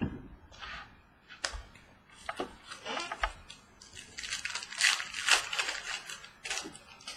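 Football trading cards being handled and flipped through by hand: a run of short rustles, slides and soft taps, busiest about two thirds of the way in.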